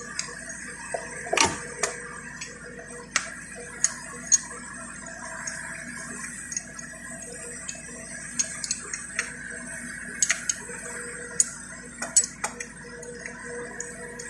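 Irregular metallic clicks and taps of a wrench on bolts and metal parts while an alternator is being mounted on an Isuzu 4HF1 diesel engine. The clicks are scattered and uneven, a few close together about two thirds of the way in, over a faint steady hum.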